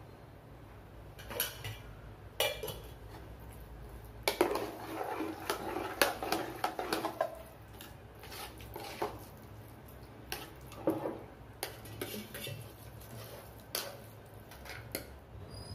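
A spoon stirring and scraping curd rice in an aluminium pressure cooker, clinking and knocking against the pot's sides. A busy stretch of scraping comes about four seconds in, followed by scattered knocks as the rice is scooped out into a steel bowl.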